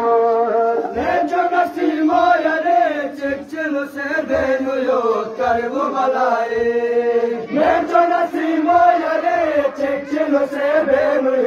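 Men's voices chanting a Muharram noha, a mourning lament, in a sustained melody with long held notes that waver in pitch.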